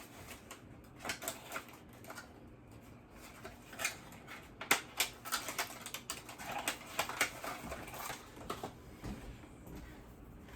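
Small packaged electronics and cables being handled and sorted: irregular clicks, taps and crinkles of plastic packaging, in clusters.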